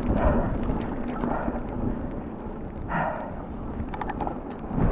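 Wind buffeting the camera microphone with a steady low rumble, over scattered clicks and rattles from a mountain bike on the trail. There is a short rush of noise about three seconds in and a quick cluster of clicks about a second later.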